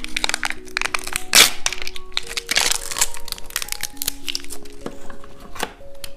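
Plastic candy packaging crinkling and crackling as it is handled and torn open, in dense bursts over a soft background melody.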